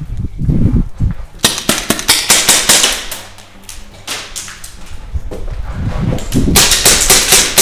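Airsoft pistols firing in rapid strings of sharp cracks, one string about a second and a half in and another near the end.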